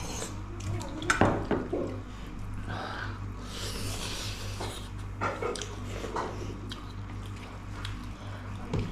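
Eating at a table: a few clinks and knocks of a utensil on a plate or bowl, the loudest about a second in, and a hissing slurp of broth around the middle, over a steady low hum.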